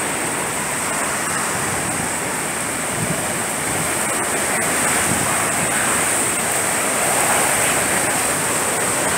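Hurricane wind and rain outside, a steady loud rushing that grows a little louder in the second half.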